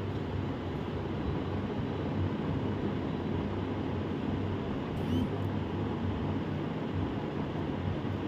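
A WDP4D diesel locomotive's two-stroke V16 engine heard at a distance as it approaches, a steady low rumble.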